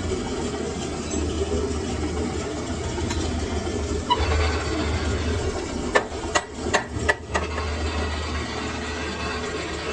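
Lathe machine running with a steady mechanical hum. About six seconds in come five or six sharp knocks in quick succession.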